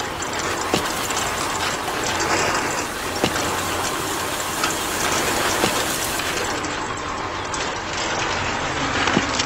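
Small geared motor of a DIY model tractor running steadily with a gear whir, broken by scattered sharp clicks.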